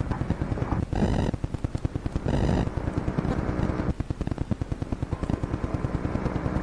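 Rapid, even mechanical clicking, about a dozen clicks a second, from equipment in a fire alarm dispatch office. Two short buzzing tones come in the first few seconds.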